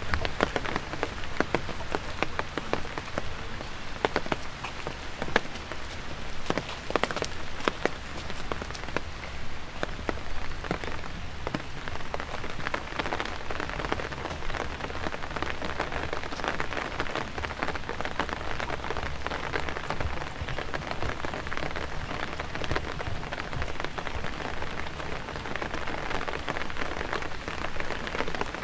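Steady rain: a constant hiss with many sharp, close drop hits scattered through it.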